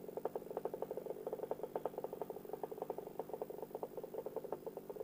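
Paramotor engine idling with a rapid, even putter of about ten pulses a second over a steady hum.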